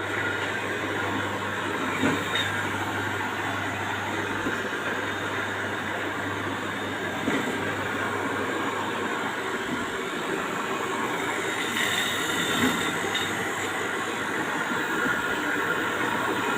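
Electric knife-grinding machine for 61 cm planer blades running steadily: a constant motor hum under an even grinding rush, with a few light knocks.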